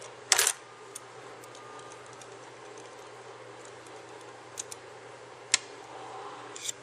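Small metal spray-gun parts and tools clicking and clattering as the gun's trigger is taken off. There is a short clatter about half a second in, then a few sharp single clicks.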